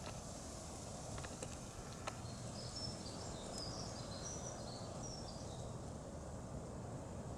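Outdoor ambience at a brook: a steady low rushing noise with a few faint clicks, and a small bird singing a short, high twittering phrase about three seconds in.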